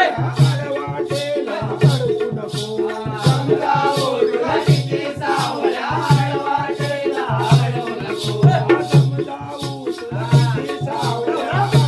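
Konkani jakhadi dance music: a two-headed barrel drum (dholki) beats a steady rhythm under high jingling percussion, while men's voices sing the dance song.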